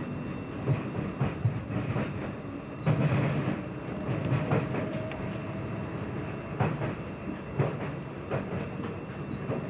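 Train running along the track: a steady rumble with irregular clacks and knocks from the wheels over the rails, and a thin steady high tone above it.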